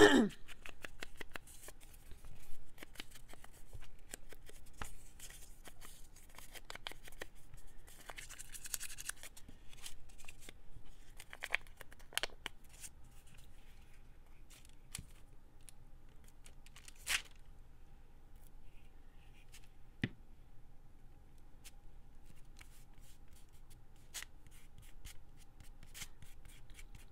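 Paper being handled and torn by hand: rustling and crinkling with scattered small taps and clicks, and a longer tearing stretch about eight seconds in.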